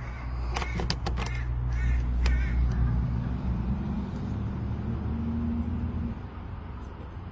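A motor vehicle's engine running close by, a low steady hum that stops suddenly about six seconds in. Crows caw several times in the first two seconds.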